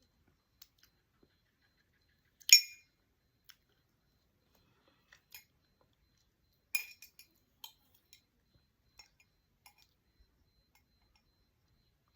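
Glassware clinking: two sharp, ringing clinks about four seconds apart, the first the loudest, with light taps and clicks between.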